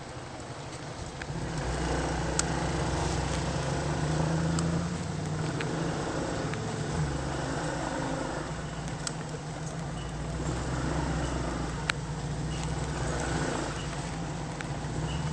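Road vehicle engines running close by: a low, steady drone that grows louder about one and a half seconds in, with a few sharp clicks.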